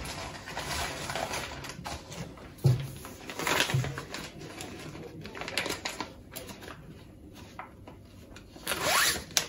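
Items being handled on a wooden kitchen worktop: scattered rustling with a few sharp knocks, the clearest about three seconds in, and a busier stretch of handling near the end.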